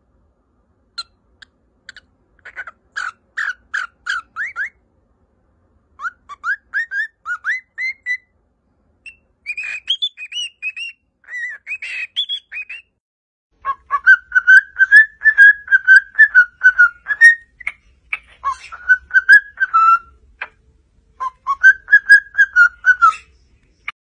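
Cockatiel whistling and chirping in a string of phrases: quick rising chirps in short runs at first, then, from about halfway, longer warbling whistles with brief pauses between them.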